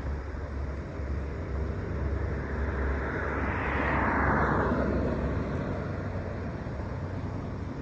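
Outdoor street noise with a steady low rumble, like wind on the microphone; a louder rushing noise swells and fades about three to five seconds in.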